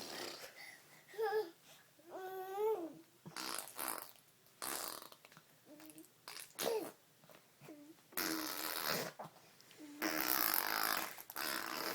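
A five-month-old baby blowing raspberries, buzzing his lips to make fart noises, between short babbling coos; the longest raspberries come about eight and ten seconds in.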